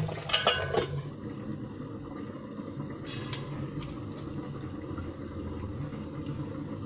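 Stainless steel lid clinking several times as it is set onto a pot of boiling spaghetti, all within the first second. A steady low hum follows, with a couple of faint taps.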